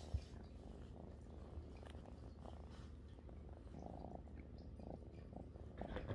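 Tabby kitten purring steadily, pressed right against the microphone. There is a brief bump just after the start.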